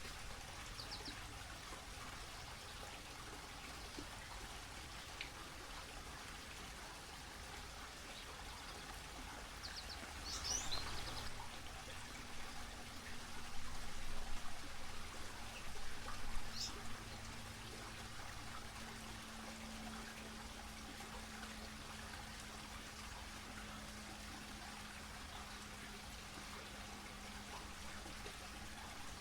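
Electric pet water fountain trickling steadily. A few brief, high bird chirps come through, and a low steady hum joins about halfway through.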